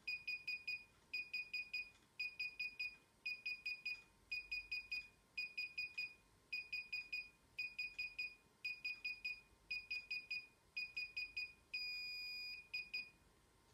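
DJI Inspire 1 remote controller beeping during a firmware update: quick runs of four or five high beeps, about one run a second. Near the end a single long beep sounds as the install reaches 100%, then one last run and the beeping stops.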